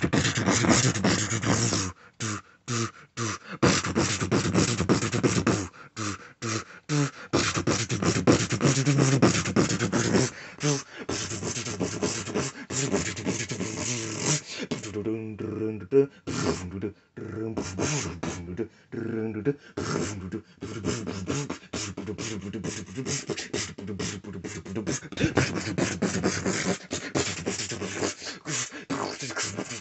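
A person beatboxing: a fast, continuous run of mouth-made drum beats and clicks mixed with hummed vocal tones, broken by a few brief pauses.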